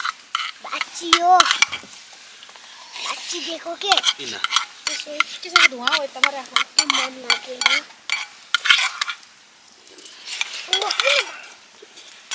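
Metal spoons clinking and scraping against steel bowls, with slurping of hot food. Short pitched sounds come and go between the clinks.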